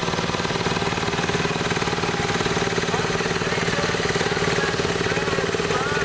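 Small engine of a two-wheeled walking tractor running steadily while it pulls a single-furrow plough, with a fast, even beat of firing pulses.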